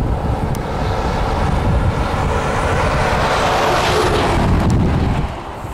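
Boeing 777-200's jet engines passing low overhead on landing approach. It is a swelling roar that peaks about four seconds in, with a high whine dropping in pitch, then eases off near the end. Gusty wind buffets the microphone throughout.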